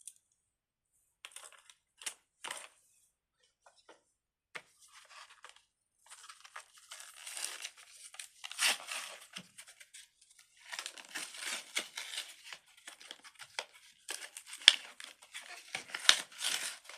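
A few scattered clicks, then plastic crinkling and tearing in irregular bursts from about six seconds in, as plastic packaging is handled and torn open.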